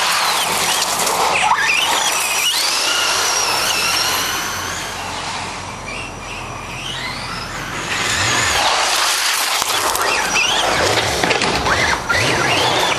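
Losi RC truck's motor whining up and down in pitch as it is revved, over a hiss of tyres scrubbing through powerslides. It eases off for a couple of seconds around the middle, then revs up again.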